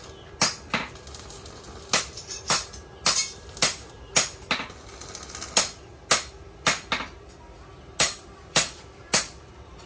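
Hammer striking metal: about sixteen sharp, ringing blows at an uneven pace, some in quick pairs.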